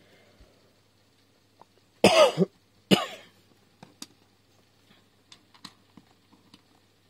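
A person coughs twice, about two and three seconds in. After that come faint small clicks of plastic LEGO pieces being picked up and handled.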